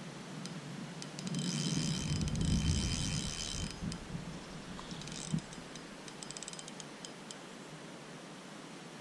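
A spinning reel's drag clicking rapidly as a hooked carp pulls line off the light tackle. There is a run of about two seconds with a low handling rumble under it, then two short spurts of clicks.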